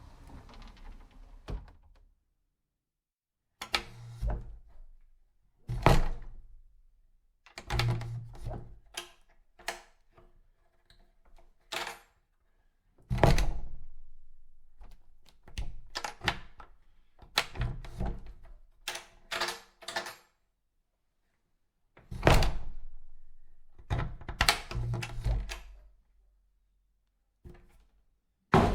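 Doors being opened and shut over and over: clicks and rattles of handles and latches between several heavy thuds of doors closing, with a few abrupt silent gaps between clips.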